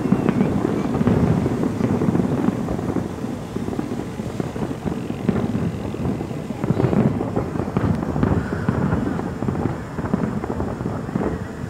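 Fireworks display going off: a dense, uneven run of overlapping bangs and crackle.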